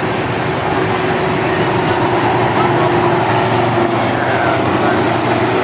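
Superstreet race cars' engines running as the field passes on the track: a steady drone of several engines together.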